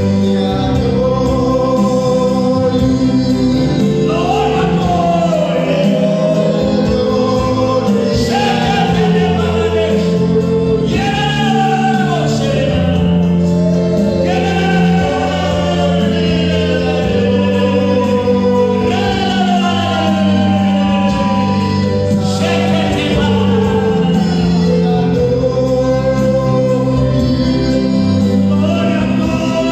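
Gospel singing by a group of voices over long held instrumental chords, a steady worship song.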